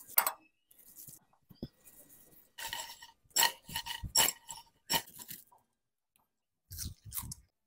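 French fries being tossed with spices in a glass bowl: a run of short shuffling shakes, with fries knocking against the glass, from about two and a half to five and a half seconds in.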